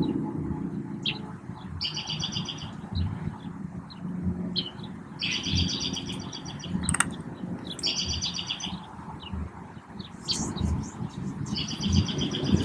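A songbird singing a short, rapid trilled phrase, repeated four times about every three seconds, over a low rustling background.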